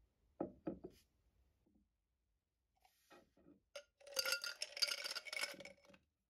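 Ice cubes tipped into a tall drinking glass, clattering and clinking against the glass for about two seconds, beginning about four seconds in. Three short knocks of the glass being handled come near the start.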